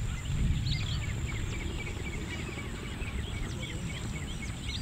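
Rural outdoor ambience: many short bird chirps and calls over a steady high-pitched insect drone, with a low rumble underneath.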